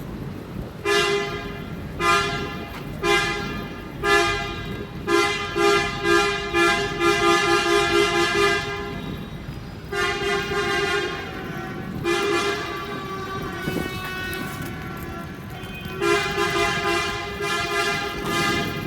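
Coach horns honking in protest. A two-note horn gives five short toots about a second apart, then a quick run of rapid toots, then several longer blasts of a second or more, over a steady low background noise.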